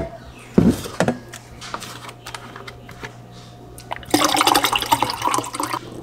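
Two short knocks about half a second apart, then near the end about two seconds of liquid poured into a glass.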